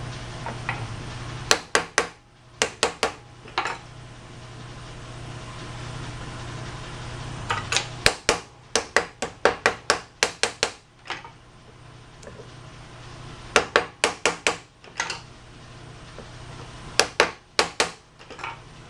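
Hammer tapping in quick bursts of several sharp strikes at a time, driving a leather seal ring into place over a tight spot in a carousel main-shaft bearing housing.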